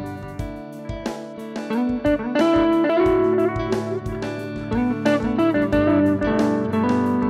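Strat-style electric guitar played through a MiMiDi delay pedal over a steady drum-machine beat, with the delay's knobs being turned so the echoing repeats change. Some notes slide in pitch around two to three seconds in.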